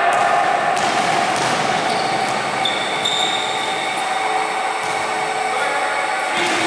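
Basketball bouncing on a gym floor during a pickup game, with several players' voices calling out, echoing in a large gym.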